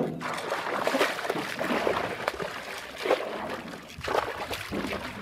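A large Australian salmon thrashing at the surface beside the boat as it is brought to the landing net: water splashing and sloshing in uneven bursts.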